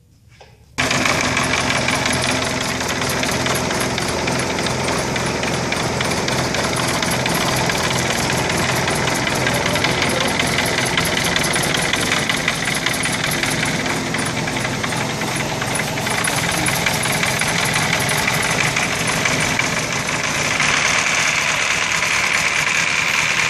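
Rotax 912 flat-four engine of an ultralight trike running steadily on the ground with its pusher propeller turning. It comes in suddenly about a second in and gets a little louder and brighter about 20 seconds in.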